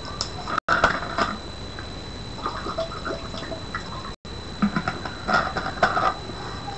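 Faint room noise: scattered small clicks and rustles over a steady high-pitched whine. The sound cuts out completely for an instant twice.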